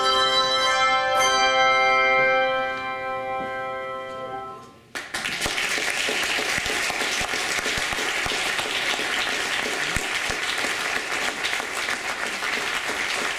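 Handbell choir ringing its final chord, struck about a second in and left to ring and fade away. About five seconds in, an audience bursts into applause that goes on steadily.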